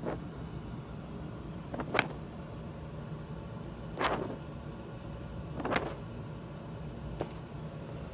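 Gift-wrap paper crinkling in four short rustles, a second or two apart, as a cat steps on it, over a steady low hum.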